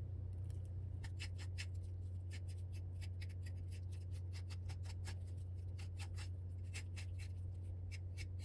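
Knife blade scraping the fine root hairs and dirt off a shepherd's purse root, quick short scratching strokes a few times a second starting about a second in, over a steady low hum.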